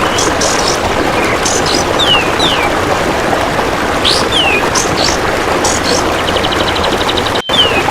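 Kapas tembak bird calling with short falling whistles and higher chirps about once a second. Near the end a golden grasshopper (belalang emas) trills in a rapid, even train of clicks. All of it sits over a steady hiss and cuts out for an instant shortly before the end.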